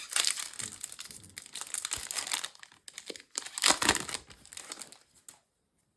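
A Yu-Gi-Oh booster pack's foil wrapper being crinkled and torn open, with the loudest rip a little before four seconds in.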